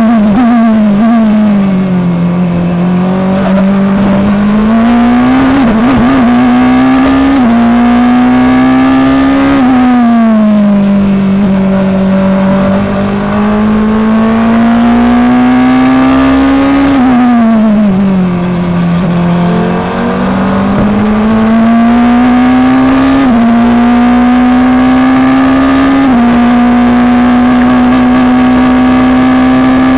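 Onboard engine note of an FIA Formula Two car's turbocharged four-cylinder engine at racing speed. Its pitch falls through braking twice and climbs again under acceleration, with sudden steps at the gear changes, and holds high and steady near the end.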